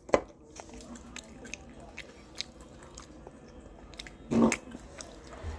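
Close-up mouth sounds of someone biting and chewing crisp breaded fried food, a run of small crunchy clicks, with a louder bite right at the start. A short voiced sound, like a hum, comes about four and a half seconds in.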